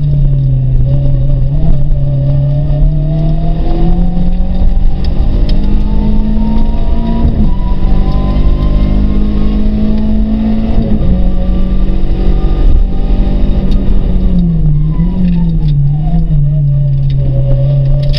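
Peugeot 306 Rallye's two-litre four-cylinder engine heard from inside the cabin, pulling hard at racing revs. Its pitch climbs and drops at gear changes about 7 and 11 seconds in, then falls with short throttle blips while it slows for a bend near the end.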